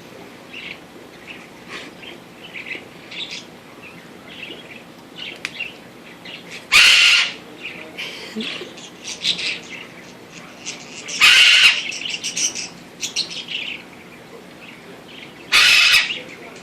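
Pet parrot squawking: three loud, short calls about four and a half seconds apart, with soft chirps and clicks in between.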